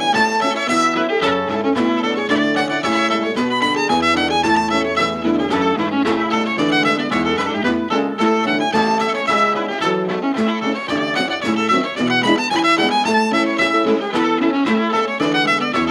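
Cape Breton fiddle playing hornpipes in a steady stream of quick notes, over lower accompanying notes.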